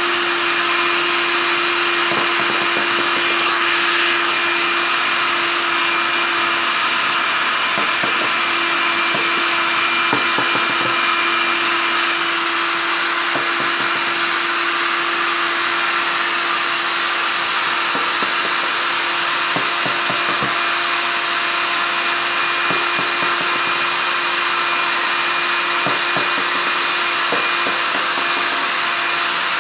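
Handheld hair dryer running steadily, its blowing air noise carrying a steady motor hum.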